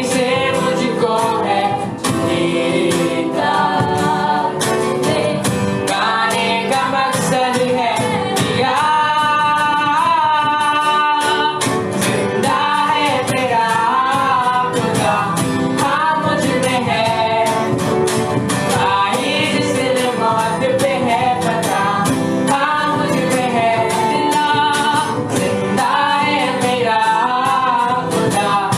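Live worship song: a voice singing over guitar and other instruments, recorded through a livestream with poor audio quality.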